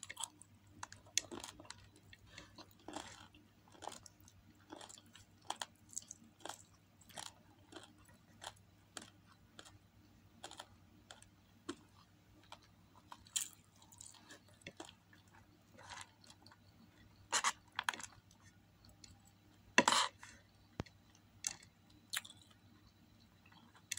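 Close-up chewing of chicken adobo and rice with crisp scorched rice (tutong): wet mouth clicks and light crunches, one or two a second, with a few louder ones about three-quarters of the way through.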